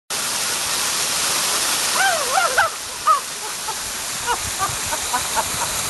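Waterfall pouring down beside the path: a steady, loud rush of falling water. A few short high-pitched sounds cut through it about two seconds in.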